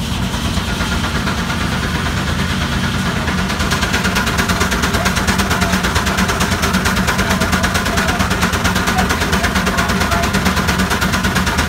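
Case steam traction engine running, its exhaust beating in a rapid, even rhythm, several beats a second, growing louder about three to four seconds in.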